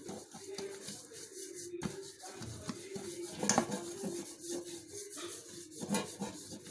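Fingers rubbing grease around the inside of a metal cake pan, in irregular rubbing and scuffing strokes against the metal with a few sharper scuffs.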